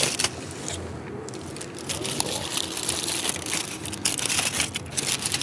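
Paper wrapping crinkling and crackling as a wrapped döner kebab is handled and unwrapped, with many short crackles throughout.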